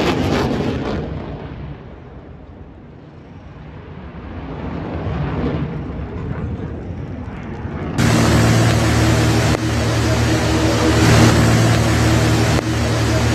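Jet aircraft overhead, its noise fading away and then swelling again. About two thirds of the way in it cuts abruptly to a light propeller plane's piston engine running loud and steady with a low droning hum.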